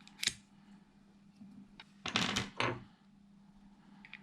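Handling noise: a brief knock or rub just after the start, then a louder cluster of rubbing and clicking about two seconds in, lasting about half a second, over a faint steady hum.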